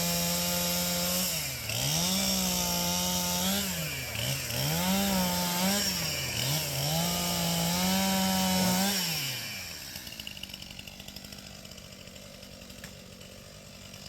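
Two-stroke chainsaw running at full throttle while cutting a fallen tree into pieces, its revs sagging and recovering several times as the chain bites into the wood. About nine seconds in the throttle is released and the saw drops to a much quieter run.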